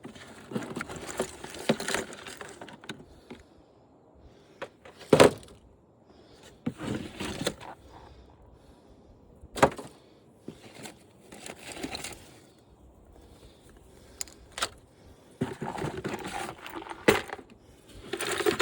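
Wiring and loose plastic and metal parts being pulled out of a stripped-down flat-screen TV: stretches of scraping and rustling broken by several sharp knocks.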